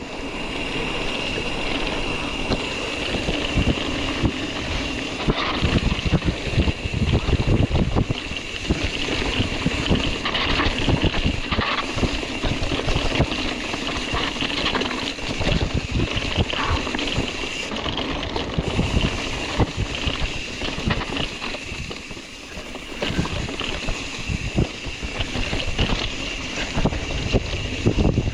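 Wind rushing over the microphone of a bike-mounted or helmet camera, with constant rattling and knocking from a mountain bike riding over rough ground.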